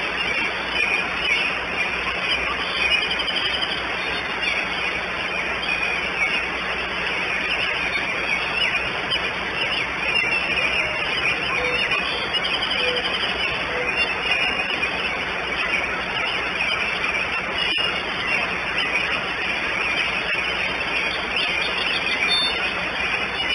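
Steady rain falling on the eagle nest, with small birds chirping faintly in the background and one sharp click about three-quarters of the way through.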